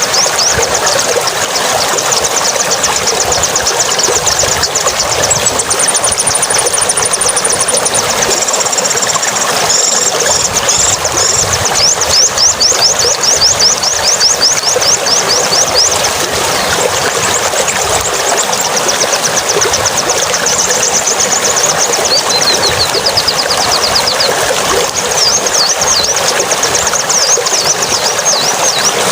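Rapid, high-pitched bird chirping in dense repeated trills over a steady rushing hiss like running water.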